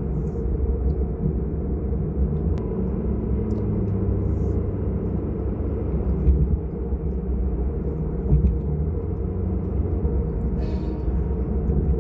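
Steady low rumble of a car driving along a highway: road and engine noise, even throughout.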